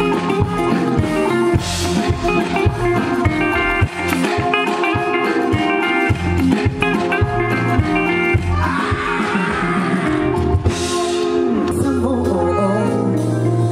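Live music played loudly through a PA at a sound check: guitar and bass over a steady drum beat, with some singing.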